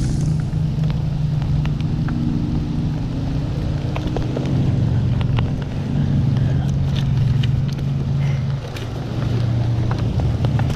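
Boat's outboard motor running at a steady speed, with scattered sharp clicks and taps from handling the camera mount.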